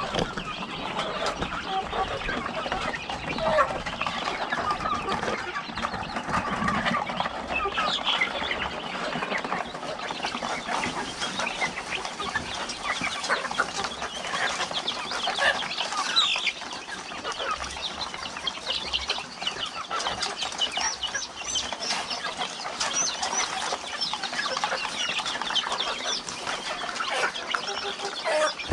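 A flock of ayam kampung (native village chickens) clucking continuously, many short calls overlapping.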